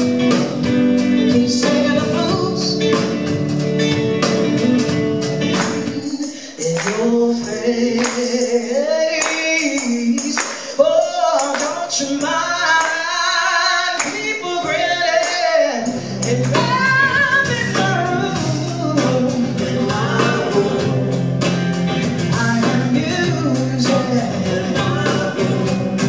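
Live band music: a woman singing with electric guitar and bass guitar. For a stretch in the middle the low bass drops out and the singing carries on with little backing; the bass comes back in about two-thirds of the way through.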